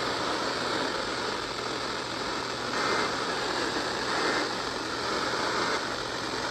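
Steady radio static hiss with a low, constant hum underneath: dead air on a weather radio receiver between alert messages.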